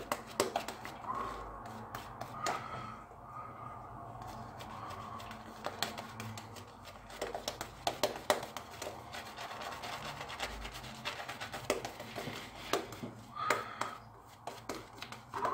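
Shavette razor with a Gillette Super Stainless 7 O'Clock blade scraping through lathered seven-day stubble in short strokes, a quick run of scratchy clicks as the whiskers are cut. This is a second pass across the grain.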